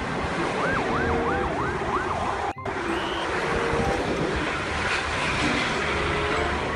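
Police vehicle siren on a yelp setting, wailing up and down about three times a second for a second and a half, over the steady rush of a convoy of police buses passing on a highway.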